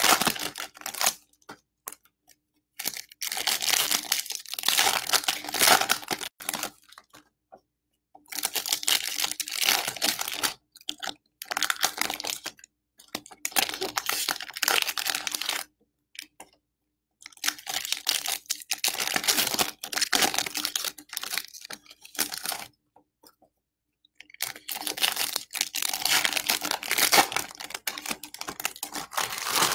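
Foil baseball card pack wrappers being torn open and crinkled, in repeated bouts of a few seconds with brief pauses between.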